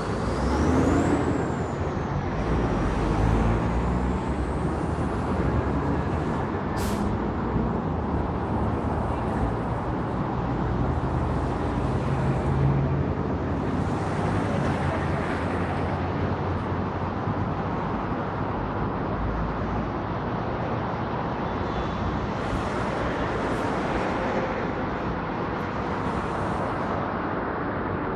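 Road traffic: a steady rumble of passing cars. A thin high squeal glides up and then down during the first few seconds, and there is one sharp click about seven seconds in.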